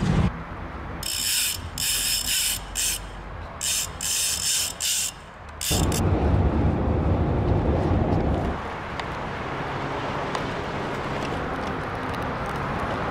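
Ratchet of an old Soviet drum fishing reel clicking in a series of short bursts as a biting carp pulls line off the spinning drum. About six seconds in a loud, low handling noise takes over as the rod is grabbed, followed by a quieter steady noise while the reel is wound in.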